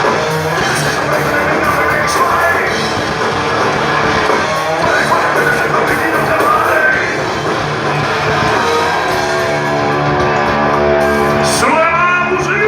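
Rock band playing live, with singing over the full band.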